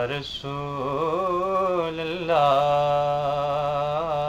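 A man's voice chanting a naat unaccompanied, holding long, wavering notes on drawn-out vowels, with a short break about half a second in.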